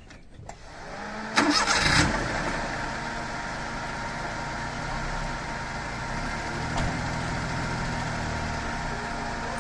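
Daihatsu Cuore's small petrol engine being started: a short crank, catching about one and a half seconds in with a brief rev, then settling into a steady idle.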